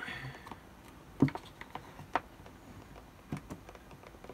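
A few small clicks and light knocks of hands handling plastic-cased sealed lead-acid batteries while pushing a spade connector onto a battery terminal. The sharpest click comes about a second in.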